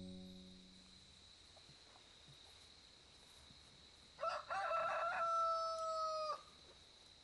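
A rooster crows once, about four seconds in: a short first note, then a long held note that cuts off sharply. Before it, music fades away in the first second.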